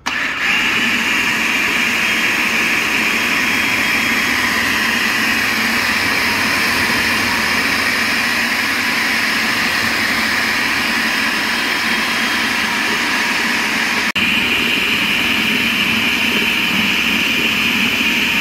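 Electric food processor motor running steadily at speed, its blade grinding coarse, spiced raw beef mince into a fine paste. It starts at once and has one momentary break about three-quarters of the way through.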